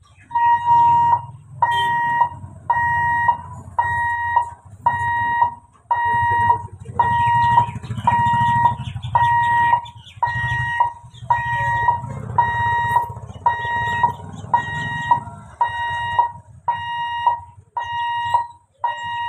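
Level-crossing warning buzzer at a railway gate, beeping about once a second, each beep a steady mid-pitched tone, over a low background rumble.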